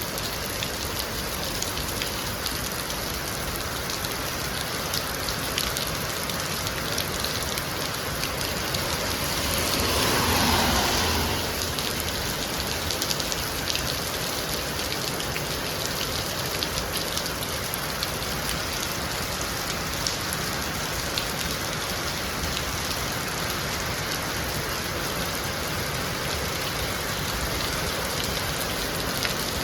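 Heavy rain falling steadily, with scattered small drop clicks. About ten seconds in, a louder swell of rushing noise rises and fades over about two seconds.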